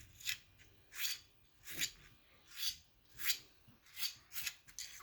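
A homemade fidget toy being rubbed or scraped in repeated rasping strokes, about eight of them, roughly one every two-thirds of a second.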